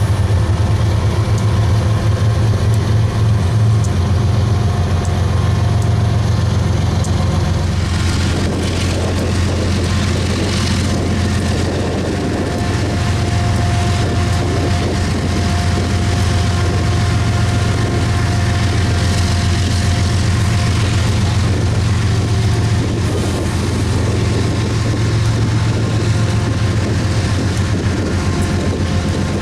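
BNSF diesel-electric locomotive's prime mover running loud and steady, a deep rapid throb, with a faint whine held for several seconds in the middle.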